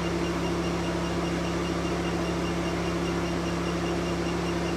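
Triple-wavelength diode laser hair removal machine running with a steady, even hum as its handpiece works over the skin.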